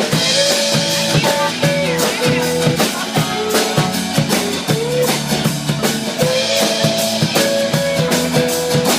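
Band playing an instrumental passage between sung verses: a drum kit keeps a steady beat under guitar, with a held lead melody that slides from note to note.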